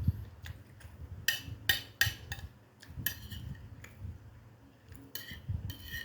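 Cutlery clinking against plates and bowls while eating: a series of short, ringing clinks, some close together, with faint low chewing sounds between them.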